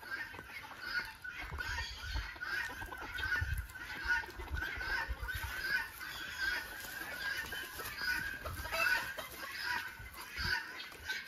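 Chickens clucking on and off in a steady run of short calls, with a few low thumps about two to four seconds in.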